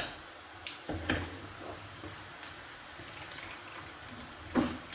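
A metal slotted spoon clinking against a ceramic plate as pieces of fried liver are lifted out of hot oil and tipped onto it: a sharp ringing clink at the start, a few lighter clicks about a second in, and a duller knock near the end, over a steady faint sizzle of the frying oil.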